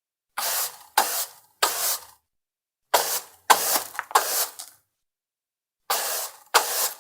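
Flat microfiber mop swishing over a wooden parquet floor: eight quick sweeping strokes, each starting sharply and fading within half a second, in three runs of two or three with short pauses between.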